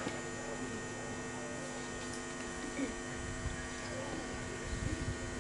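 Steady electrical hum and buzz from a public-address system, with faint voices murmuring in the background.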